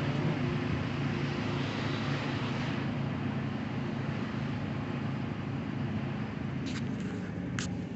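Steady engine and road noise of a car heard while driving, a low hum under an even rush. A few short sharp clicks near the end.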